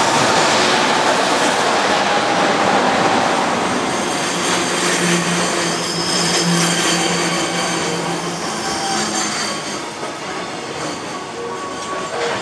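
JR Freight EF200 electric locomotive passing close by, then a long train of container wagons rolling past with a steady rumble of wheels on rail. A thin, high wheel squeal joins in from about four seconds in.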